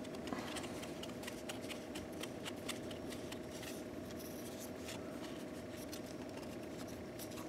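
Faint rustling and light clicks of hands turning and handling a pleated paper oil filter element with cardboard end caps, busiest in the first half, over a steady faint hum.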